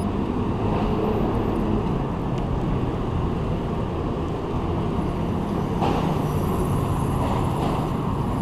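Steady traffic and road noise heard while riding, a dense, even rumble with no single standout source, and one brief tap a little before six seconds in.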